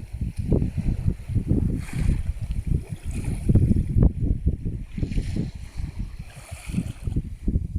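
Black Sea waves washing in, swelling about two seconds in and again in the second half, under heavy wind buffeting the microphone in uneven low gusts.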